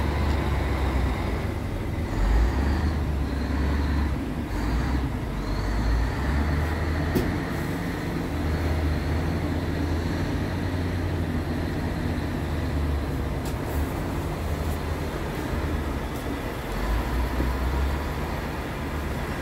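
Steady low rumble of an idling diesel truck engine, with uneven gusts of wind on the microphone.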